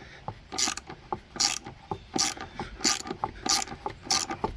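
Small hand ratchet backing out a stiff tail-light bolt, the pawl clicking in a quick burst on each return stroke, about one stroke every three-quarters of a second.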